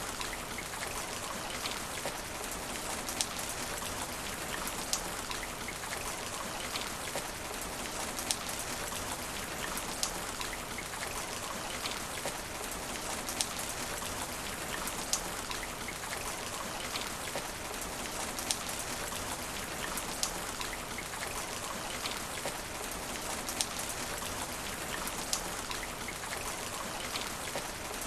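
Steady rain falling on asphalt, an even hiss with single drops ticking sharply every second or two.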